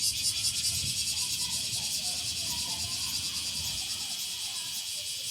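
A chorus of cicadas shrilling: a high, pulsing buzz at about four or five beats a second that smooths into a steady drone.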